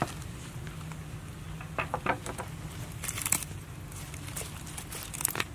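Scattered light crackles and clicks of hands handling a grilled fish and its wooden skewer on leaves, over a steady low hum.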